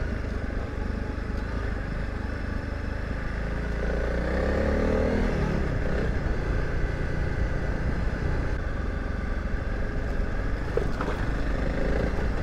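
Honda CRF300 Rally's single-cylinder engine running as the bike rides a dirt track, over a steady low rumble. About four seconds in, the revs rise briefly and then drop back.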